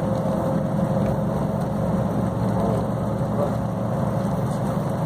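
Steady engine and tyre road noise heard from inside a moving road vehicle driving on a wet highway.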